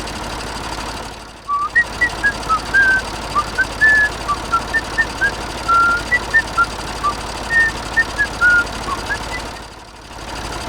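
A short whistled tune of quick, separate notes that rise and fall, over a steady engine hum.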